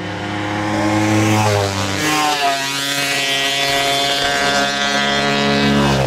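Low-flying aircraft passing overhead, its engine drone loud throughout and shifting in pitch as it goes by.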